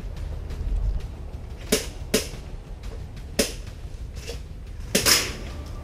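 Airsoft guns firing single shots: about five sharp snaps spaced roughly a second apart, the loudest a quick double near the end.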